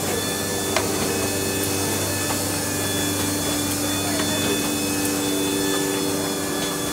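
Kolbus DA 240 hardcover case maker running in production: a steady machine hum with a few held tones, broken by a couple of sharp clicks.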